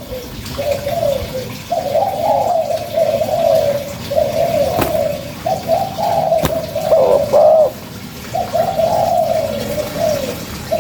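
Spotted dove (tekukur) cooing in a run of repeated low phrases separated by short pauses.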